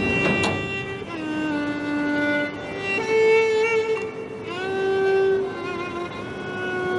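Background music score: a violin playing long, held notes with vibrato over a string accompaniment, with a short noisy burst right at the start.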